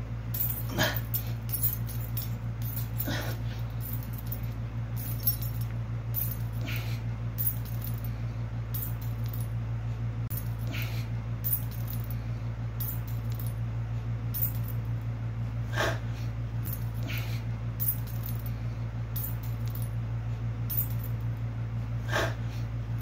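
A metal wallet chain hanging from jeans jingles lightly and repeatedly with each push-up rep, with a few short strained exhales from the man doing the push-ups now and then, over a steady low hum.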